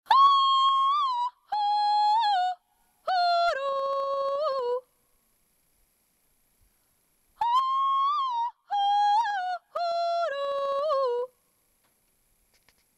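A very high, wordless singing voice calling a three-part, yodel-like phrase that steps down in pitch, with sharp breaks between the notes. After a pause of about two and a half seconds, the same phrase comes again.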